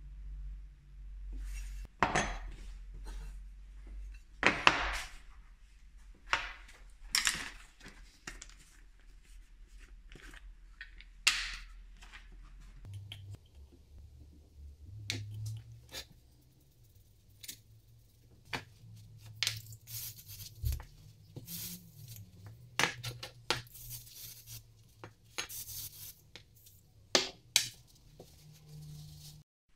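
Steel plane iron and chip breaker clinking and knocking as they are handled on a wooden bench. Several short hissing sprays from an aerosol can come in among them, most in the second half.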